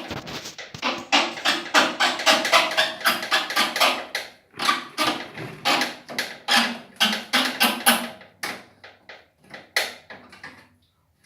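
A rapid series of sharp knocks and taps, a few a second with some ringing between them, that thins to scattered single knocks near the end: tools working on the rusted metal of a washer-dryer.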